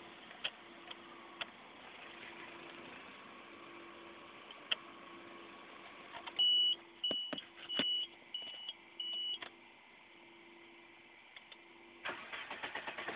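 Car's dashboard warning chime beeping five times, about halfway through, over the steady hum of the engine. Near the end comes a burst of rapid clicking.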